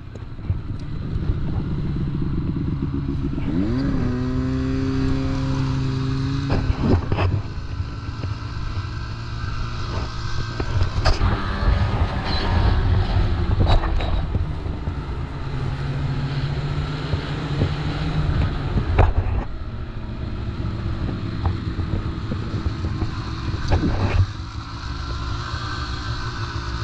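Ski-Doo snowmobile engine running under way across snow, revving up about four seconds in and then holding a steady pitch. A few sharp knocks come as the sled jolts over the snow.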